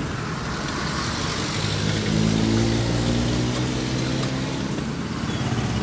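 Mitsubishi L300 van's engine running on the move, heard from inside the cab over road noise; a steady engine hum comes up about a second and a half in and holds.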